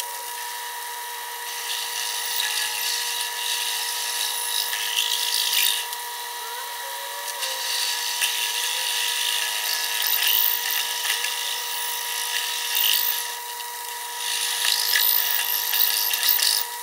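Large twist drill spinning in a metal lathe's chuck, cutting into an aluminum disc. The bit is poorly sharpened and cuts slowly. The sound is a steady high tone with surges of cutting noise that come and go, and a few short squeals.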